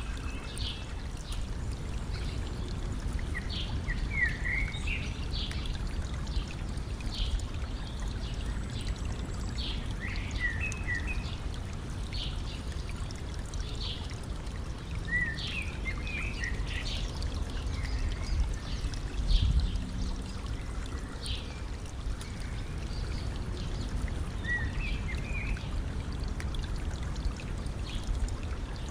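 Stream running steadily over its bed, with small birds chirping in short calls every second or two. A brief low bump about two-thirds of the way in.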